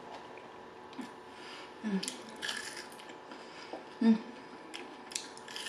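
Close-miked eating sounds: a person chewing and biting food, with a few short, irregular clicks and crunches and a soft thump about four seconds in.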